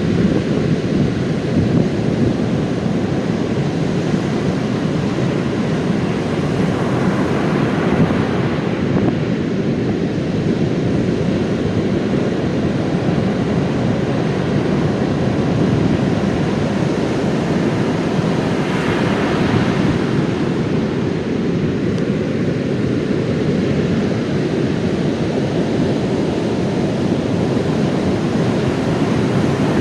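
Heavy surf from large post-typhoon storm waves breaking on a sand beach: a continuous low rumble, with wind buffeting the microphone. A wave crashes more sharply about seven seconds in and again around nineteen seconds, bringing a brighter rush of foam.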